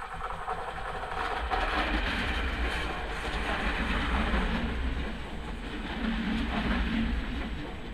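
Czech Railways class 471 CityElefant double-deck electric multiple unit passing close by, its wheels running on the rails. The noise swells about a second and a half in as the carriages go past and stays loud.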